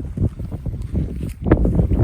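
Wind buffeting the microphone: an uneven low rumble that swells and dips, with some brief rustling on top.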